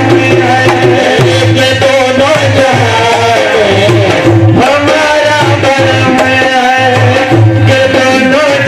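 Live devotional qawwali-style music: a male voice singing a gliding melody over a steady beat from hand-played dholak drums.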